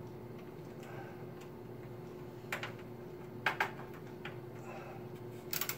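Small sharp clicks and taps of a screwdriver and screws working against the motherboard and metal PC case, a few spread over the seconds with a quick cluster near the end, over a steady faint hum.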